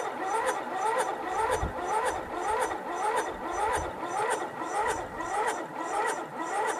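Electric starter cranking a Briggs & Stratton 13.5 hp flathead engine without it catching, the starter's whine rising and falling with each compression stroke about twice a second. The engine is turning over slowly, which the owner takes for not spinning fast enough.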